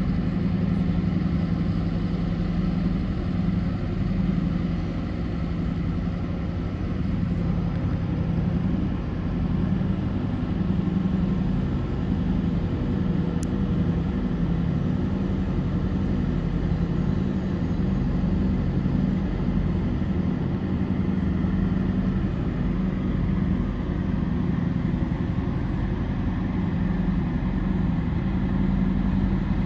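Diesel engines of a river towboat pushing barges, running with a steady low drone.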